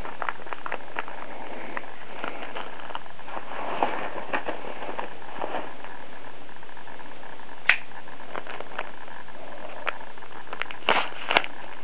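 A package of Coleman lantern mantles being opened by hand: crinkling and scattered sharp clicks over a steady hiss, with a few louder clicks near the end.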